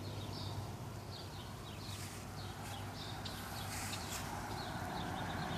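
Royal Enfield motorcycle engine idling with its steady, low 'dugg dugg' thump, with birds chirping in the background.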